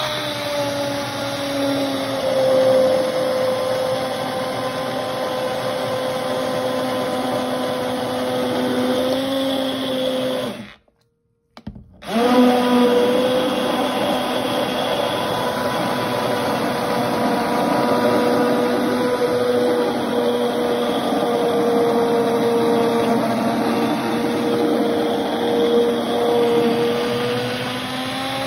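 Hand-held immersion blender running steadily while puréeing a pot of mushroom soup, its motor hum wavering slightly as the blade is moved through the liquid. It breaks off for about a second near the middle.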